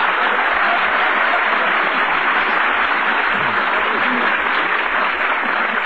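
Studio audience applauding steadily, heard through the narrow, dull sound of an old radio transcription, easing off near the end.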